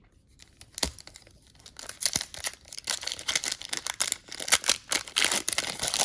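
Crinkling and rustling of packaging as a stack of trading cards is handled. A single sharp click comes about a second in, and the crinkling grows busier from about two seconds in.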